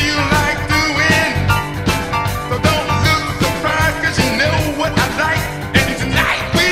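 Rock song with a singing voice and a steady drum beat, playing as background music.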